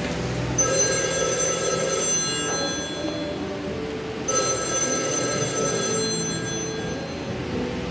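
A telephone ringing twice, each ring a steady high-pitched trill lasting about three seconds, with a short gap between them.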